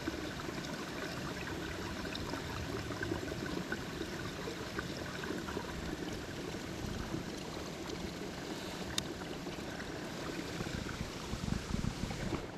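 Steady outdoor background hiss with faint clicks and handling noise as a baitcasting reel is worked on by hand; one sharper click about nine seconds in and a few low knocks near the end.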